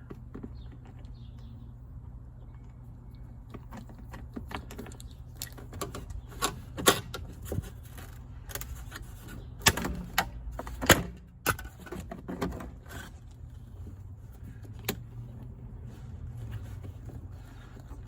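Irregular sharp clicks and knocks of parts and tools being handled while pulling apart a car's interior, loudest in a cluster through the middle, over a low steady hum.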